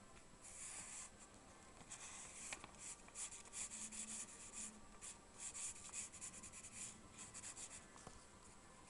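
Faint scratching of a pencil lead on paper, in runs of quick short sketching strokes that stop near the end.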